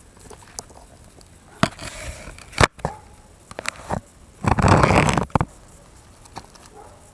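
Handling noises: a few sharp clicks and knocks, with a loud scraping rustle about four and a half seconds in that lasts about a second.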